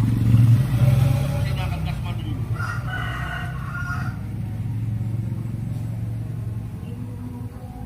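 A rooster crows once, about two and a half seconds in, over a steady low hum of an idling vehicle engine.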